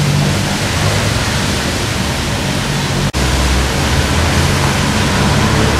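Loud, steady rushing noise with a low rumble beneath it; the sound drops out for an instant about three seconds in.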